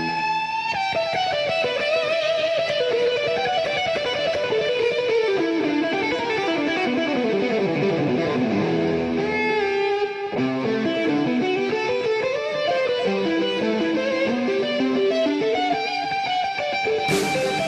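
Background music made of fast runs of notes that sweep down and back up, with a brief break about ten seconds in.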